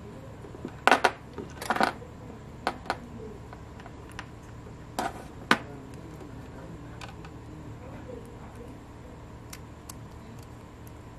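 Sharp clicks and knocks of hard 3D-printed plastic axle parts being handled and fitted together: a cluster of clicks in the first two seconds, two more around five seconds in, then a few faint ticks.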